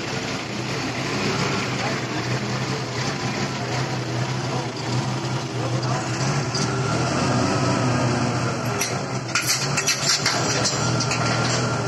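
Toyota forklift engine running steadily as its clamp holds steel bitumen drums up at a truck bed, with a run of metallic knocks and clanks about nine to eleven seconds in as the drums are set down and handled.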